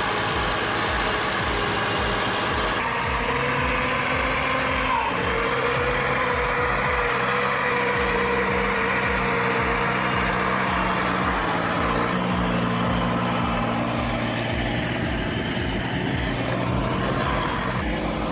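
Diesel engine of a CAT 320 excavator with a disc saw felling head, running steadily. A steady mid-pitched whine joins about five seconds in and holds for several seconds.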